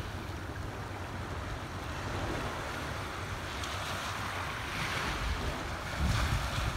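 Small waves washing on a rocky shore, a steady hiss of surf. Gusts of wind buffet the phone's microphone, strongest near the end.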